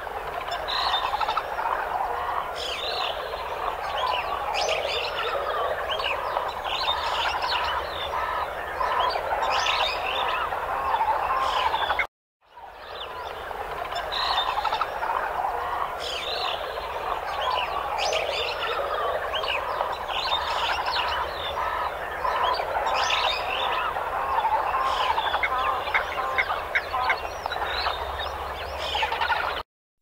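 Dense chorus of many overlapping animal calls chattering continuously. It cuts out for a moment about twelve seconds in and again just before the end.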